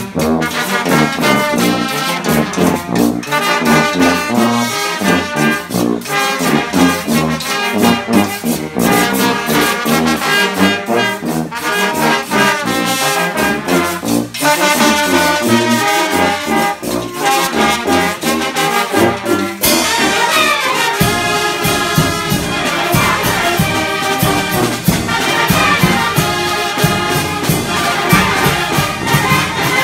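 A Oaxacan-style brass band playing live: clarinets, trumpets, trombones and sousaphones over bass drum, cymbal and snare drums, with a steady beat.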